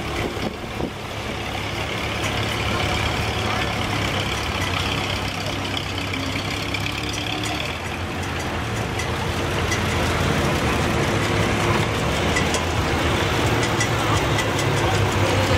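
1954 Cockshutt Model 40 tractor engine idling steadily, with a faint fast ticking in the second half.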